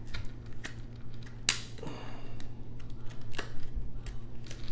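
Plastic opening pick and blade working around the edge of an iPhone X screen, cutting through the display adhesive: short scrapes and a few sharp clicks scattered through.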